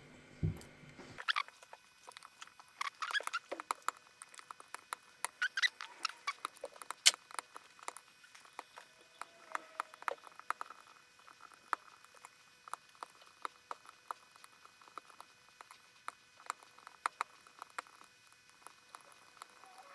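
Metal lock picks and a tensioner working inside an Izis pump lock: an irregular run of small clicks and scrapes as the pin stacks are pushed, busiest a few seconds in.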